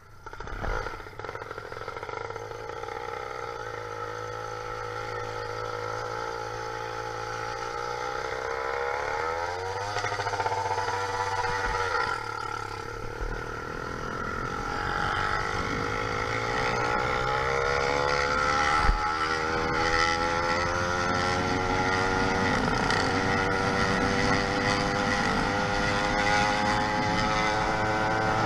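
YD100 two-stroke motorized-bicycle engine, fitted with a window piston, running. It comes in abruptly at the start. Its speed climbs over several seconds, falls back about ten seconds in, then climbs slowly and steadily again.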